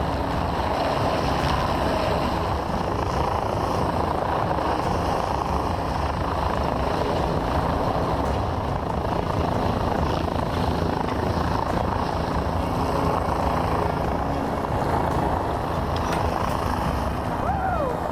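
Steady, loud machine drone with a low throb, from the heavy machinery lifting the one-ton antenna into place.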